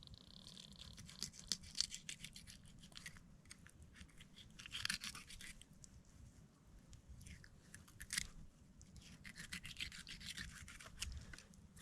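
Faint, irregular scraping and clicking of a knife cutting open a coho salmon's belly to take out the eggs.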